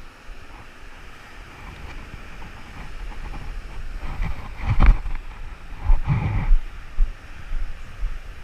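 Rough sea surf washing in, with wind buffeting the microphone in loud gusts about halfway through.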